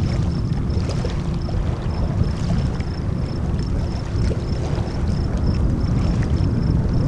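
Wind rumbling on the microphone over small waves lapping, with a faint high chirp repeating about twice a second.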